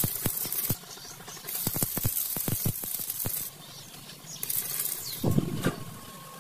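Arc welding: bursts of crackling hiss from the welding arc, a second or two each, mixed with sharp metallic clicks and taps. A few heavier knocks come about five seconds in, followed by a steady ringing tone.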